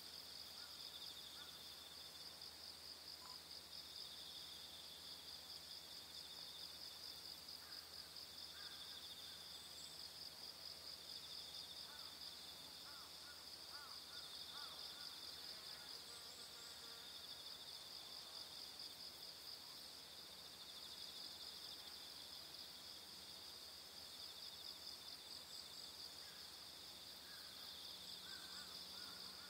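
Faint, steady chorus of insects, a continuous high buzzing trill, with one strand swelling and fading every couple of seconds.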